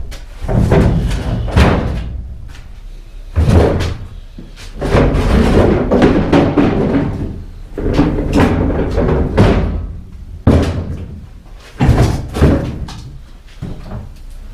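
Plastic wheelie bins being dragged and shoved around on a hard floor, with a series of loud bangs and knocks from the bin bodies and lids striking each other, broken by stretches of rolling and scraping.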